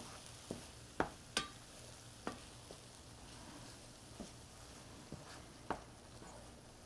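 Wooden spoon stirring black bean taco filling in a skillet, knocking lightly and irregularly against the pan, over a faint sizzle of the simmering mixture.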